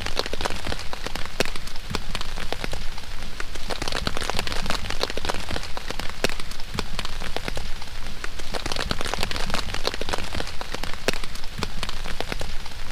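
Steady rain falling, with a dense patter of sharp, close drop hits.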